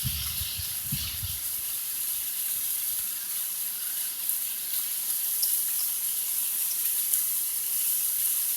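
Waterfall rushing steadily, with a few low thumps in the first second or so.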